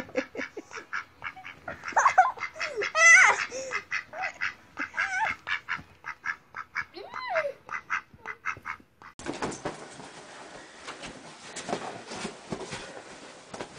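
A duck quacking in many short, repeated calls, with rapid sharp strokes between them. About nine seconds in, this gives way abruptly to quieter rustling room noise.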